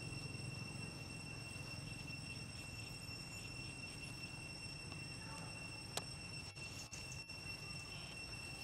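Faint forest ambience: a steady high-pitched insect drone over a low rumble, with a single click about six seconds in.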